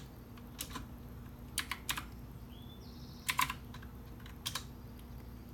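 Keys being typed on a computer keyboard: about nine separate keystrokes, falling in small clusters with pauses between them.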